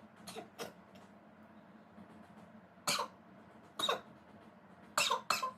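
A woman's short, forceful coughs while she tries to make herself sneeze by tickling her nose with grass: two faint ones near the start, then louder single ones about three and four seconds in and a quick pair near the end. They come out as coughs rather than true sneezes.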